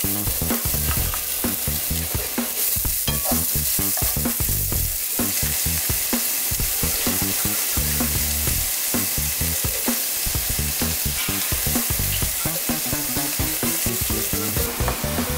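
Finely chopped onion sizzling steadily in butter and oil in a frying pan, stirred and scraped with a wooden spoon.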